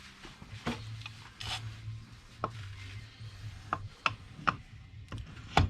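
ATV wheel hub being worked onto its WD-40-sprayed axle shaft and ball joint: metal rubbing and scraping, with about six sharp clinks and knocks, the loudest near the end.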